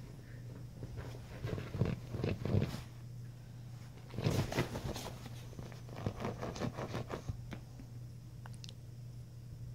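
Scratching and rustling on a quilted bedspread in three irregular spells, from a Chinese crested puppy pawing and digging at the covers. A steady low hum runs underneath.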